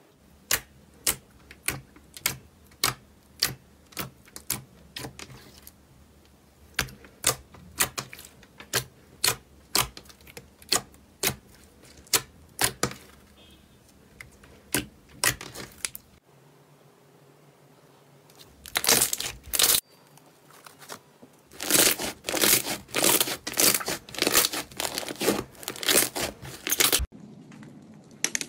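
Clear slime being poked and pressed by fingers, making sharp clicking pops about two a second. After a pause partway through, a run of dense crackling follows.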